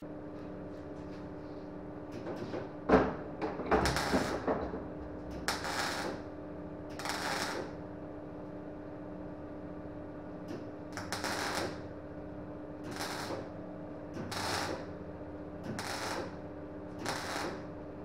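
MIG welder laying a series of short tack welds on car-body sheet steel: about a dozen crackling, half-second bursts, roughly one every second or so, over a steady electrical hum.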